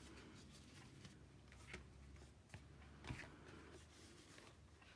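Very faint rustling and soft tapping of paper cards and card stock being handled and gathered up, a few light clicks among them, the clearest about three seconds in.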